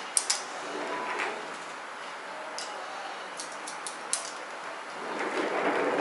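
Hair-cutting scissors snipping hair: two sharp snips just after the start and a quick run of four or five about three to four seconds in. Near the end there is a louder stretch of rustling noise.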